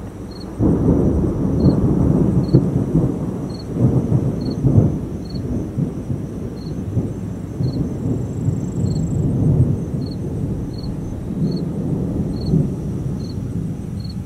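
Thunder rumbling: a deep roll breaks in suddenly about half a second in, swells twice in the first five seconds and keeps rolling on. Insects chirp faintly in a regular beat behind it.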